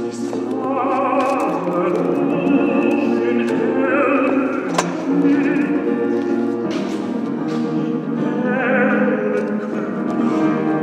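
Operatic singing with a wide vibrato over sustained instrumental accompaniment, with one sharp click about halfway through.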